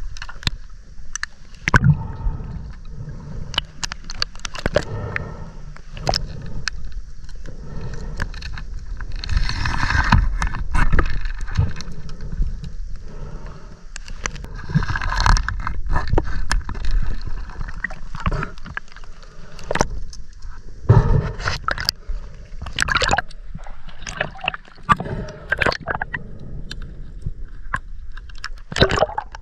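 Water splashing and gurgling around a swimmer moving through the water, with irregular sharp clicks and knocks and several louder surges of splashing.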